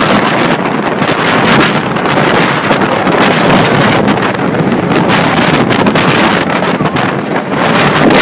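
Loud, steady rushing noise of heavy wind buffeting the microphone.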